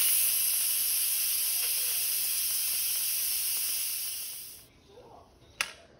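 Instant Pot steam release valve venting in a steady hiss during a quick release. The hiss fades out about four and a half seconds in as the pressure is spent, and a single sharp click follows about a second later.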